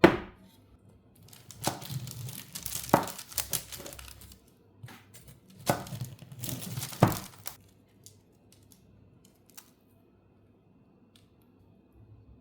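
A freshly baked bun being torn apart by hand, its crust crackling and tearing in two spells, with a sharp knock right at the start.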